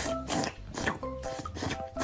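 Background music with steady notes and a low beat.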